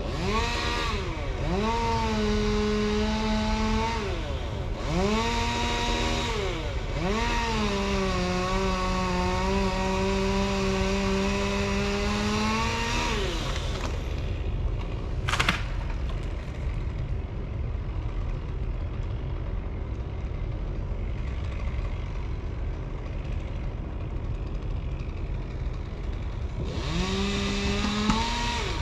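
Chainsaw running at full throttle in long held stretches, with its pitch dipping and rising between them. About halfway through it drops back to idle, with a single sharp click, then revs up again near the end.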